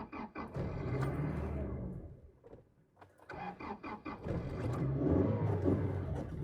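Toyota Tacoma 2.7-litre four-cylinder engine cranked twice; each time it catches briefly and dies. This is the crank-and-stall of a lean-running engine that acts like it isn't getting fuel.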